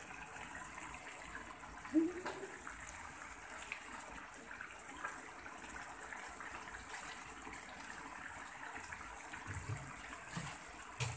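Black pepper beef sauce simmering in a frying pan on a gas stove, a steady bubbling and sizzling as it is left to reduce and thicken. A brief knock about two seconds in.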